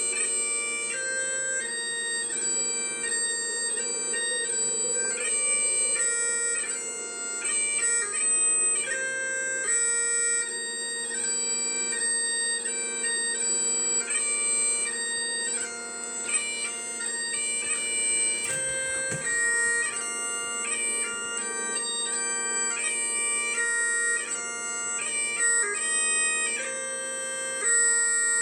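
Bagpipes playing a tune over steady, unchanging drones.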